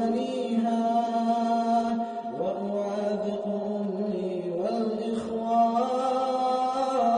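A male nasheed singer's voice in a long, wordless melismatic chant: sustained notes that slide upward in pitch about two and a half seconds and again about five seconds in, over a steady lower drone note.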